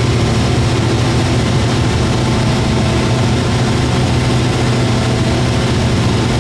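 Cessna 172's piston engine and propeller running steadily in flight, heard inside the cabin: an even low hum under a broad rushing noise.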